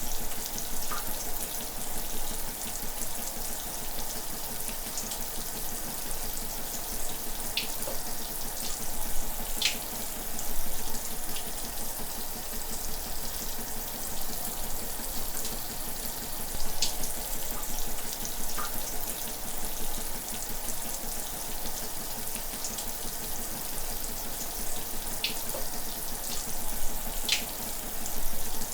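Shower running steadily, an even hiss of falling water with a few short, high splashes scattered through it.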